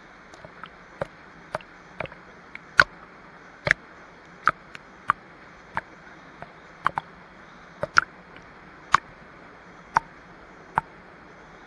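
Steady rush of a small waterfall pouring into a pool, with sharp ticks or clicks landing irregularly, a little under two a second, louder than the water.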